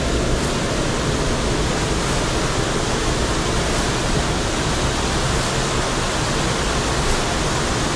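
Mountain stream water rushing and falling through a gorge, a steady even noise.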